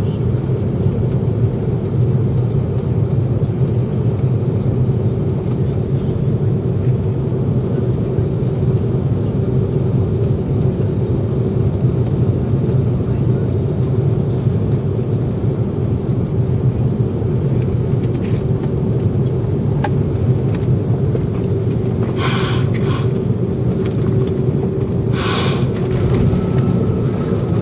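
Cabin noise of an Airbus A340-300 on final approach: the steady rumble of its four CFM56 engines and the airflow, with a steady hum. Near the end there are two brief hissing sounds, and a faint thin tone comes in just before the wheels reach the runway.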